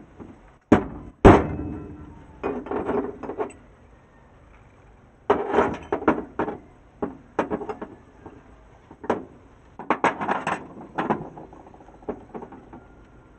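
Hammer striking a steel rod against a starter-motor housing to drive an improvised steel bushing into place: irregular metallic taps, some in quick runs, the loudest about a second in with a short ring.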